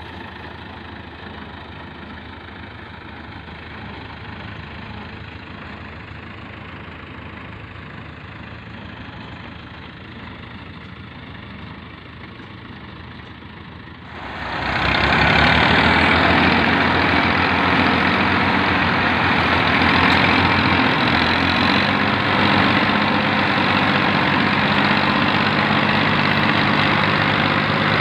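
Massey Ferguson 240 tractor's three-cylinder diesel engine running steadily; about halfway through the sound jumps much louder as the PTO-driven silage cutter chops standing fodder crop, the engine working under load with a dense chopping rush over it.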